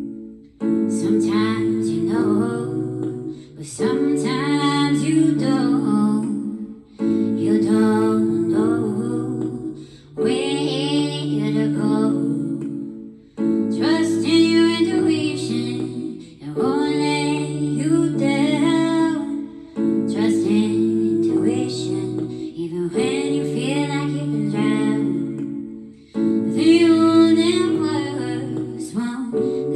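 A song: a woman sings in short phrases over sustained instrumental chords, pausing briefly about every three seconds.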